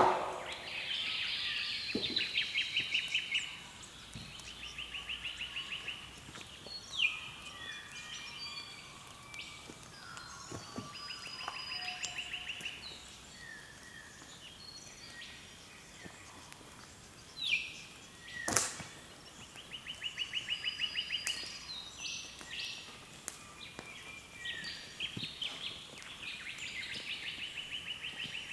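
Wild birds calling in the early morning dawn chorus, with a rapid pulsed trill that comes back every few seconds among other short chirps and whistles. A few sharp clicks break in twice.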